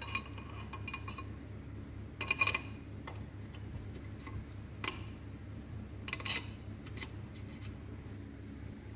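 Metal tools and engine parts clinking as they are handled during engine assembly: a few separate sharp metallic clinks with a brief ring, over a steady low hum.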